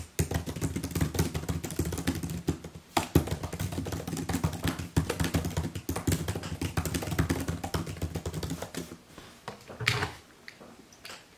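Fast typing on a laptop keyboard: a rapid, continuous clatter of key clicks that stops about nine seconds in, followed by a single louder knock about a second later.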